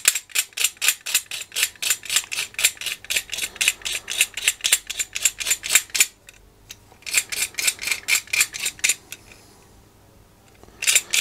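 A sharp knife scraping the enamel coating off copper wire about 1.2 mm thick, in quick, even strokes of about four or five a second, in two runs with a short break about six seconds in.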